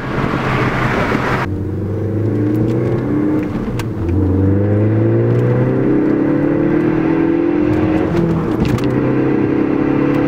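A rush of noise that cuts off sharply after about a second and a half, then a Ford Focus ST's turbocharged four-cylinder heard from inside the cabin, accelerating through the gears. The engine note rises, drops at an upshift about four seconds in and again about eight seconds in, then climbs again. It runs through a Magnaflow straight-through race muffler in place of the resonator on stock-size piping, giving a mild note that is not ear-ripping.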